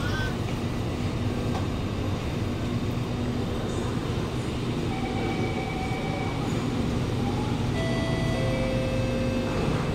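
Steady hum of a Kawasaki Nippon Sharyo C751B metro train standing at a platform with its doors open. About halfway through, a few faint steady whining tones join it.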